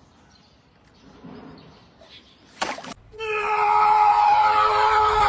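A loud scream held at one steady pitch for a little under three seconds, starting a little past halfway through after a short click. The first half is faint background.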